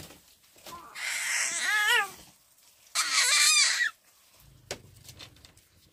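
A young child crying, two loud wavering wails about a second apart.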